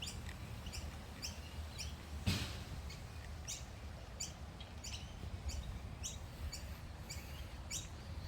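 A small bird chirping over and over, short high chirps about two a second, over a steady low rumble. A single sharp knock a little over two seconds in.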